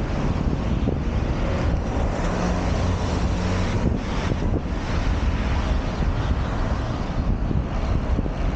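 Wind rushing over a bike-mounted camera's microphone while riding, over the steady engine noise of passing traffic.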